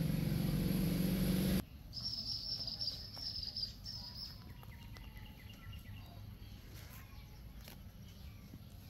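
A loud, low, steady drone cuts off abruptly about a second and a half in. A high, fluttering trill of chirps follows for about two and a half seconds, then faint scattered ticks and chirps.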